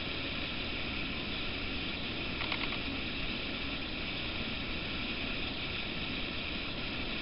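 Steady background noise: an even hiss over a low rumble, with one short faint click about two and a half seconds in.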